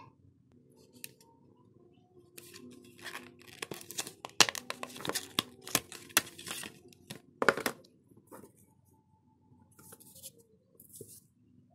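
Clear plastic blister pack of a replacement phone battery being handled and opened: a dense run of sharp crackles for about five seconds, then a few faint rustles near the end.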